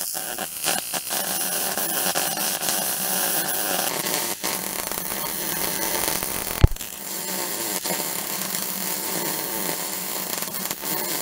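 Miller wire-feed welder's arc crackling and sizzling steadily as a bead is laid on a steel skid plate, with a brief break about four seconds in and a single sharp pop about six and a half seconds in.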